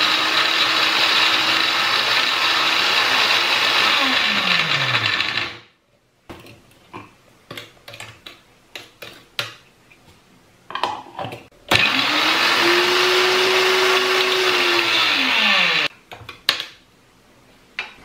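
Small electric grinder (mixie) grinding hog plums, run twice. Each run is a loud steady whir whose hum sinks as the motor spins down when released. Between and after the runs, plastic lid and jar clicks and knocks as the jar is opened and handled.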